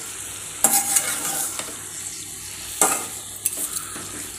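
Metal spatula stirring and scraping chicken pieces with onions and tomato around a kadai, several sharp scrapes over a steady sizzle as the chicken sautés in oil on a low flame.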